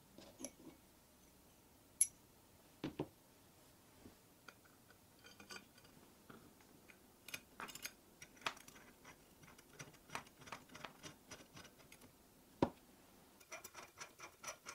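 Aluminium bar and steel rods handled on a table: scattered light clicks and taps, with two sharper knocks, one about two seconds in and one near the end, followed by a quick run of small ticks.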